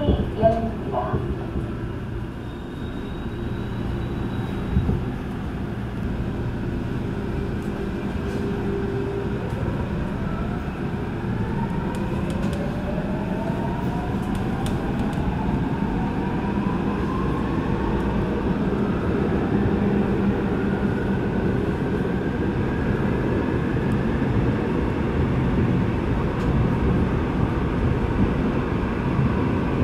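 Seoul Subway Line 8 train pulling out of a station and gathering speed into a tunnel, heard from inside the car: a steady rumble of wheels on rails, with a motor whine that climbs in pitch from about ten seconds in as the train accelerates.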